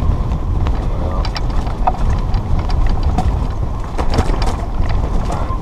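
Strong wind buffeting the microphone, a continuous loud low rumble, with scattered small clicks over it.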